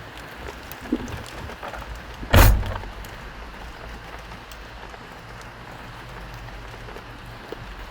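A car door slams shut once, about two and a half seconds in, over a steady low hiss inside the car; a smaller knock comes about a second in.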